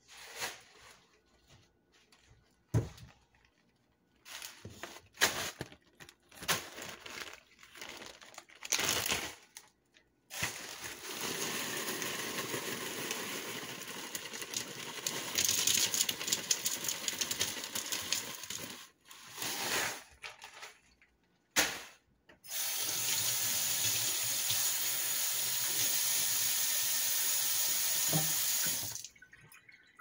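Ice poured from a plastic bag into a plastic immersion-blender cup, a long rattling rush of small ice pieces. Before it come a few seconds of scattered bag-handling sounds, and near the end a second steady pour of about six seconds.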